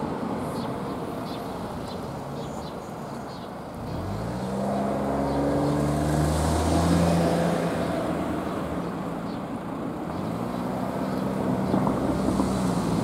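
A vehicle engine pulling away and speeding up, rising in pitch about four seconds in and again about ten seconds in.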